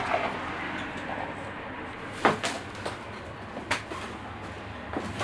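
Footsteps on a floor littered with paper and debris: about four scattered knocks and scuffs over a steady low background hiss.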